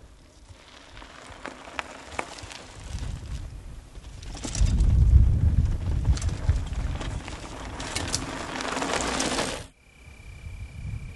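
Mountain bike rolling over dirt and gravel trail, a crunching, rattling noise with scattered clicks of stones and a low rumble that swells about halfway through. It cuts off suddenly near the end, leaving a quieter background with a steady high-pitched whine.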